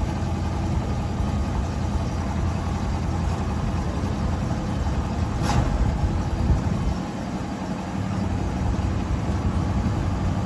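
A vehicle engine running steadily with a low rumble, with one brief sharp knock about halfway through.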